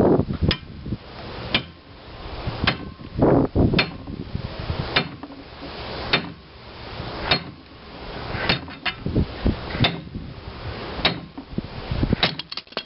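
Steel gib key puller being struck over and over, sharp metal-on-metal blows about once a second, as it tries to draw a rusted-in gib key from a cast-iron flywheel hub on a 1927 McCormick-Deering 1 1/2 hp engine. A quick run of several blows comes near the end.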